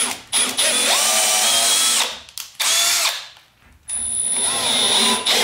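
Milwaukee cordless drill with a countersinking bit drilling pilot holes up into wood, in several short runs, each starting with a rising whine as the motor spins up.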